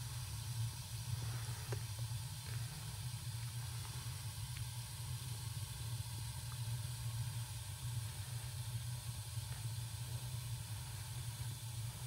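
Atmospheric gas burners of a Lennox Conservator G12E natural draft furnace firing steadily: an even low rumble with a soft hiss of the flames.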